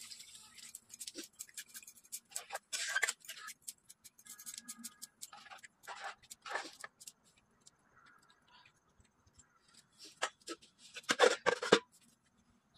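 Water poured from a steel tumbler into a simmering curry in a steel kadai, followed by scattered clicks and clinks. About eleven seconds in comes a burst of metallic clattering, the loudest sound, as a metal lid is set on the kadai.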